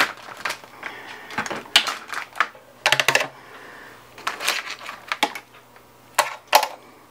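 Metal tongs clicking and clinking against aluminium sheet pans as steamed crab legs are lifted from one pan onto another, with a quick run of clicks about three seconds in.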